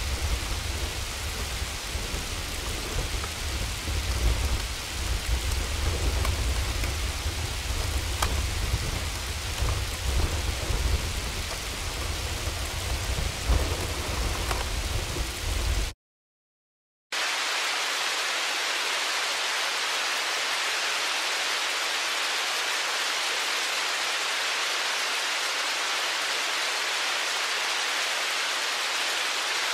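Two hailstorm recordings. The first is hail and rain hitting, with scattered sharp ticks over a deep low rumble. After about a second of silence some two-thirds of the way in, a second recording plays: a steady, even hiss of falling hail and rain with no low rumble.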